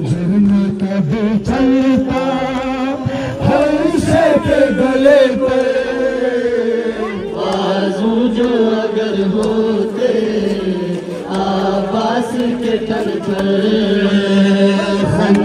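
A crowd of mourners chanting a nauha, the Muharram lament, together, their voices held in long, wavering lines. Scattered sharp strikes come through, the hand-on-chest beating of matam.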